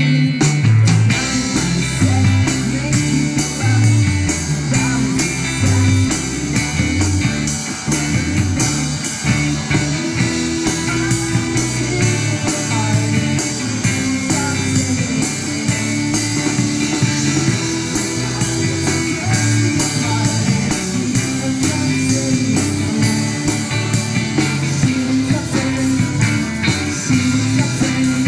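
A rock band playing live, electric guitar over a bass line that steps between low notes, recorded on a phone.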